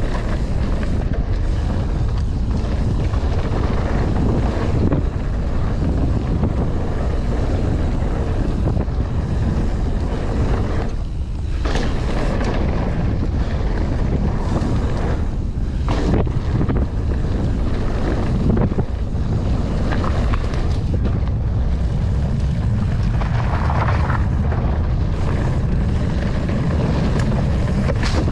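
Wind rushing over the microphone as a Norco Sight mountain bike rides fast down a dirt trail, with a few short knocks from the bike over rough ground.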